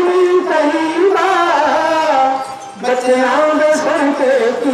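A man singing into a handheld microphone: long held notes with a slowly wavering pitch, in two phrases with a short breath between them about two and a half seconds in.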